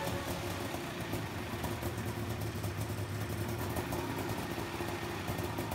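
Homemade helicopter's engine idling on its drive test rig. It runs with a steady low hum and a rattle of fine clicks.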